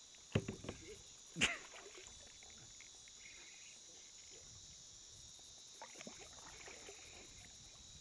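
A steady, high-pitched chorus of cicadas, with a few sharp knocks from the kayak paddle being handled in the first two seconds, the loudest about a second and a half in, and a few softer knocks near six seconds.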